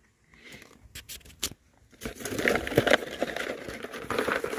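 Plastic packaging crinkling and rustling as hands rummage through a cardboard parts box, starting about two seconds in after a few light clicks.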